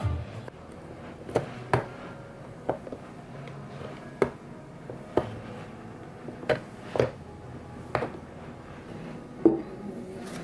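Rolls of washi tape clicking and tapping against a clear acrylic organizer as they are set into its drawers by hand. About ten sharp, irregular knocks, the loudest near the end.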